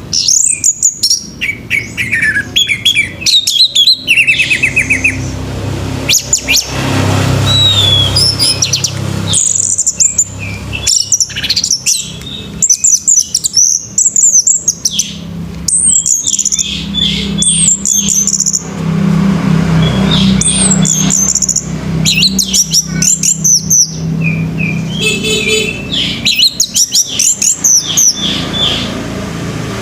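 Orange-headed thrush singing continuously: a long run of varied, loud whistled phrases and quick pitch sweeps, broken by rapid trills, over a low background hum.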